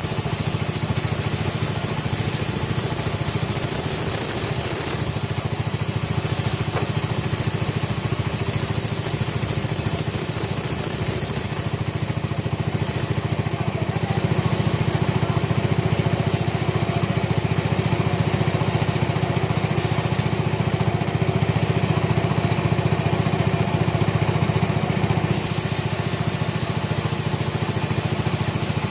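Sawmill machinery running steadily: a continuous engine-like drone, a little louder through the middle stretch.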